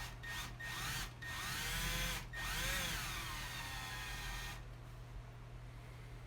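Power drill running in short trigger bursts, its motor speed rising and falling, then stopping about four and a half seconds in.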